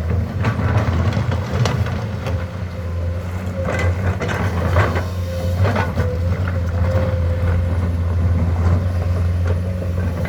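Komatsu excavator's diesel engine running steadily under load, with a faint whine that comes and goes and a string of irregular clanks and knocks from the machine at work.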